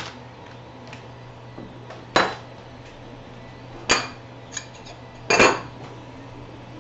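Metal parts of a 3D printer kit, aluminium frame extrusions and loose hardware, clanking as they are moved and set down on a wooden workbench. There are three sharp clanks, about two, four and five and a half seconds in, the last two with a brief metallic ring, and a few small clicks between them.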